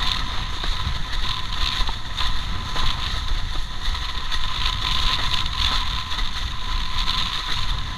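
Wind buffeting the microphone and water rushing and spraying along the hull of a JP Australia X-cite Ride 130 windsurf board sailing at speed: a steady low rumble under a continuous hiss.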